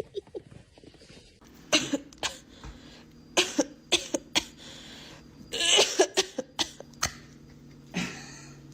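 A run of short, sharp coughs or hacks, about a dozen spread over several seconds. A steady low hum starts underneath about one and a half seconds in.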